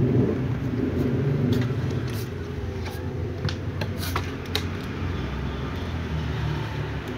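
Low steady rumble with scattered sharp clicks and crunches: cats eating dry kibble from clear plastic tubs.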